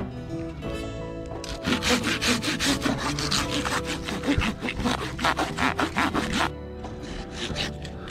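Hand saw cutting through a fallen log: a run of quick, even back-and-forth strokes for about five seconds, then a few more strokes near the end.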